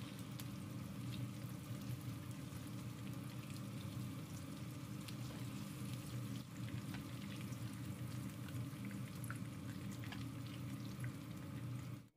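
Breadcrumb-coated corn dogs on wooden skewers frying in hot oil in a nonstick pan: a steady sizzle full of small crackling pops, over a steady low hum. The sound cuts off suddenly near the end.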